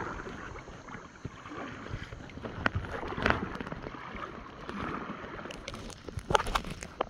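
Kayak paddle strokes through lake water: splashing and dripping that swell and fade about every one and a half to two seconds, with a few sharp clicks, the loudest near the end.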